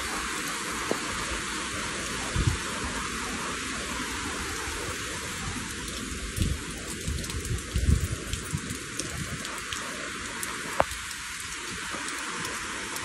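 Rain falling steadily, an even hiss, with a few short low thumps on the microphone, most of them between about six and nine seconds in.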